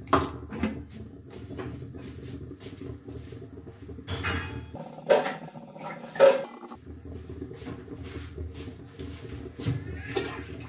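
Kitchen clatter: scattered knocks and clinks of pots, pans and utensils being handled, over a steady low hum.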